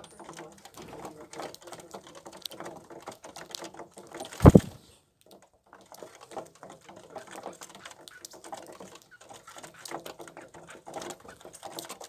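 Wild birds at an open feeding spot: many short chirps and calls. About four and a half seconds in there is one loud thump, followed by a moment of silence.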